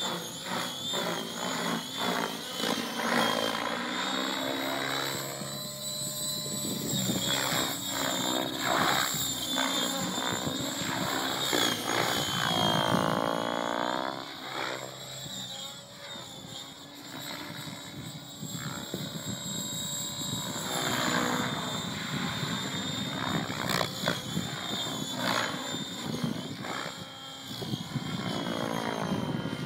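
Electric T-Rex 700 RC helicopter in flight. Its rotor blades buzz and its motor and gears whine at a near-steady high pitch, with the head speed held by the governor at about 1850 rpm. The sound sweeps and swells several times as it passes and dips in level for a few seconds in the middle.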